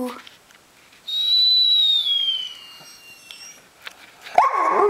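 A single high, thin tone falls slowly in pitch for about two seconds. About four seconds in, the Bernese Mountain Dog puppy breaks into a sudden loud whine that falls in pitch.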